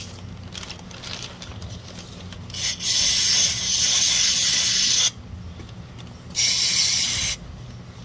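Aerosol can of carburetor cleaner sprayed through its red extension straw into a small engine carburetor to flush out gunk: a short puff, then a steady hiss of about two and a half seconds, and after a pause a second hiss of about one second. Light handling clicks come before the first spray.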